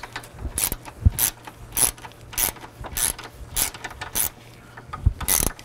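Hand ratchet with a T25 Torx socket clicking in short bursts about every 0.6 s as it is swung back and forth, tightening a radiator mounting bolt.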